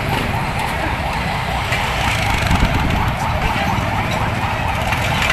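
A siren yelping in quick repeated rising sweeps, several a second, over loud street noise and a low rumble.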